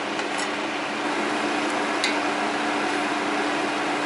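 A pot of coconut curry simmering, heard as a steady hiss with a low hum underneath. Two light clicks of utensils against the pot as the vegetables go in.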